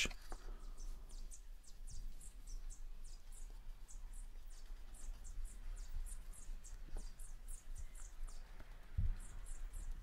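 Small birds chirping faintly and repeatedly, many short high-pitched chirps, over a low rumble, with a single soft knock about nine seconds in.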